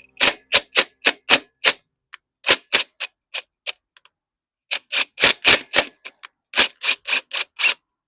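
Sharp mechanical clicking, about four clicks a second, in three runs with short pauses between them.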